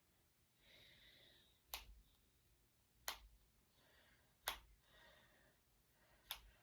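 Finger knuckles cracking: four sharp single pops, roughly a second and a half apart.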